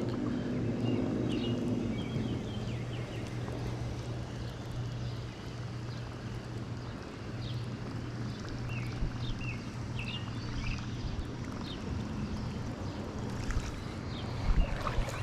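A boat motor running with a steady low hum under wind noise. A scattering of short, high chirps comes through near the middle.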